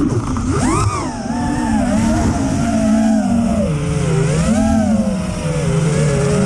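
FPV freestyle quadcopter's four EMAX 2306 1700 kV brushless motors and props on a 6S battery, heard onboard: a buzzing whine that rises and falls in pitch with the throttle, over steady wind rush.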